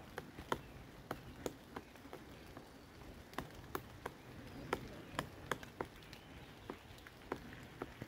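Pileated woodpecker pecking at a conifer trunk: sharp, irregular knocks of its bill on the bark, roughly two a second with short pauses, as it chisels for food.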